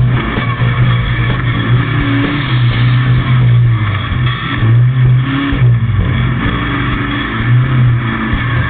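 Off-road race vehicle's engine running at speed, its note swelling and dropping back in surges every second or two.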